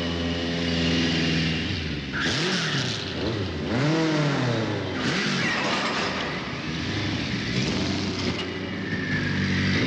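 Motorbike engines revving hard in a chase, their pitch swinging up and down as they accelerate and pass, with tyre squeal.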